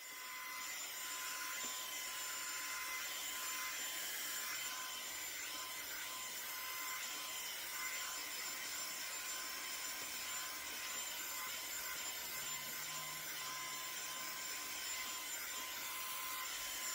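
Revlon One-Step hot-air paddle-brush hair dryer running, comes up to speed within the first second, then blows with a steady hiss and a faint high whine.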